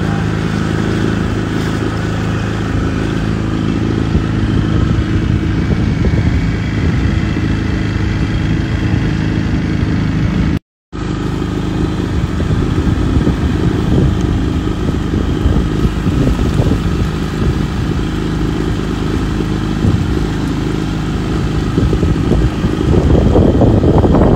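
Boat motor running steadily under way, with a brief gap a little under halfway through.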